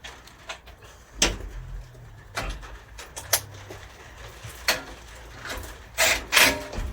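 Socket wrench and metal parts clicking and knocking as 6mm bolts are tightened with a 10mm socket, with a run of louder, quick strokes near the end.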